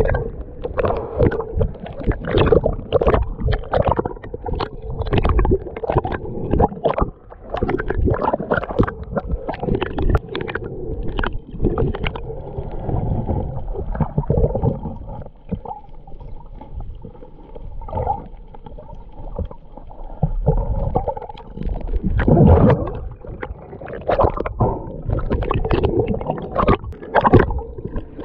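Sea water gurgling and sloshing around the camera while snorkelling, in irregular surges.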